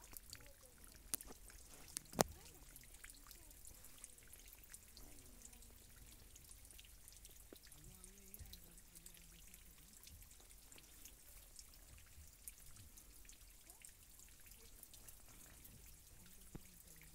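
Near silence: a faint steady hiss with a few sharp clicks in the first couple of seconds, the loudest just after two seconds in.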